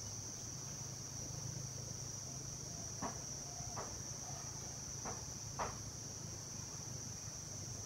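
Steady high-pitched drone of an insect chorus, with a low hum underneath and four short sharp ticks in the middle.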